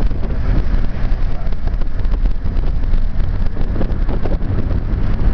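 Steady low rumble of wind buffeting the microphone, mixed with the running noise of a vehicle.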